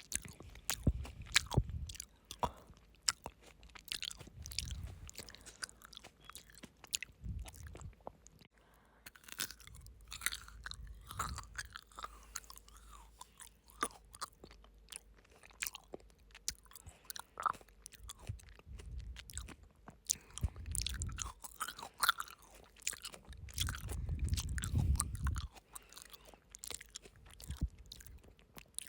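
Frozen grapes being bitten and chewed close to the microphone: many sharp, icy crunches and crackles, with loud breaths now and then.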